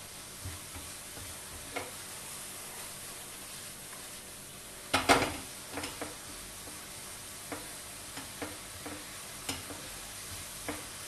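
Diced apples frying in butter and caramelizing sugar in a nonstick frying pan: a steady sizzle while a silicone spatula stirs them, with scattered light taps against the pan and a louder knock about five seconds in.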